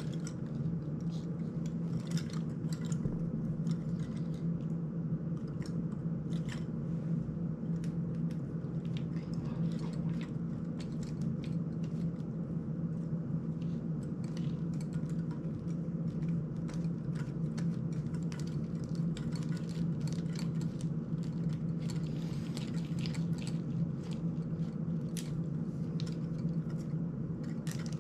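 Small, irregular clicks and taps of a small FPV drone's parts being handled and worked on with a hand tool, over a steady low hum.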